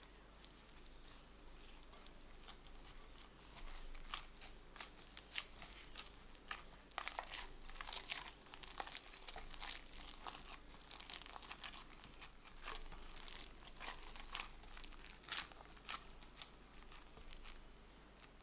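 Sticky bread dough being squeezed, stretched and folded by hand in a glass bowl as butter is worked in and the dough comes together into a ball. It gives irregular soft sticky crackles and tearing, with a disposable glove crinkling, busiest in the middle and tapering off near the end.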